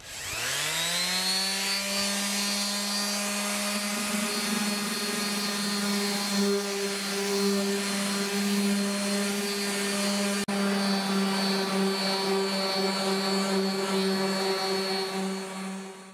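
Corded electric random orbital sander with 220-grit paper starting up, its whine rising to full speed over about a second, then running steadily while sanding the old paint on a fiberglass canoe hull; it stops near the end.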